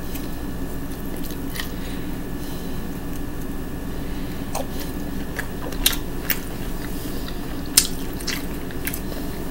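Close-miked chewing and mouth smacking as a person eats a mouthful of glazed ham, with several sharp, wet mouth clicks in the second half, over a steady low hum.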